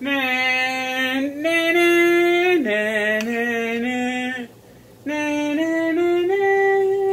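A voice singing a tune in long held notes, stepping from pitch to pitch in several short phrases, with a brief pause about four and a half seconds in.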